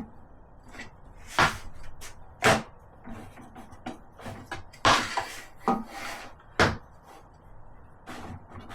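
Several sharp knocks and clunks, about five loud ones with fainter taps between, as wood is handled and set against the table saw's top and fence, with no saw motor running.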